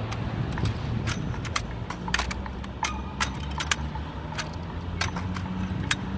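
Drill rifle being spun, tossed and caught: a string of sharp, irregular clacks and rattles from hands slapping the stock and the sling hardware. A steady low hum runs underneath.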